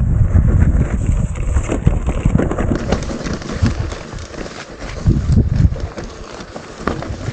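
Mountain bike riding down a rough trail: tyres rumbling and the bike rattling and knocking irregularly over the ground, easing off about four seconds in.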